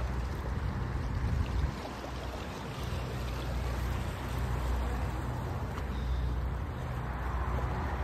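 Seawater lapping and sloshing against the rocks of a breakwater, with a low rumble of wind on the microphone that eases briefly about two seconds in.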